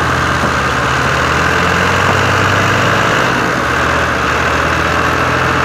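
Tractor diesel engine running steadily under heavy load, straining to haul a loaded soil trolley up out of a pit with its front wheels lifting off the ground.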